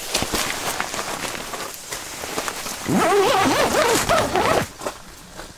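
Makchang and garlic sizzling and crackling on a grill in their own fat. About three seconds in, a drawn-out, wavering wordless vocal sound lasts about a second and a half.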